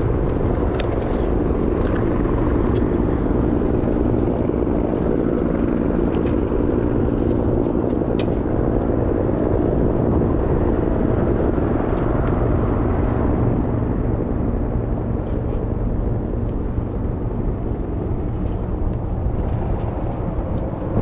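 Small boat's outboard motor running at a steady speed under way, with water and wind noise.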